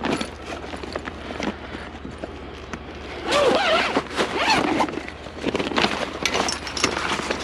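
Folded pop-up canopy in its fabric carry bag being handled: the bag and cover rustle, with small clicks and knocks throughout. The handling gets louder about three seconds in as the bag is pulled open.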